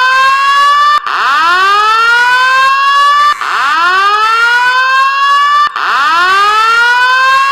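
Fire alarm evacuation system sounding a whoop tone: a loud rising sweep that restarts about every two and a third seconds.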